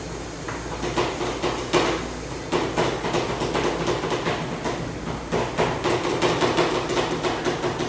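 Two metal spatulas chopping and tapping against the steel cold plate of a rolled ice cream station, mashing the freezing ice cream base. The sound is rapid, irregular metallic clacking, several strikes a second, starting about half a second in.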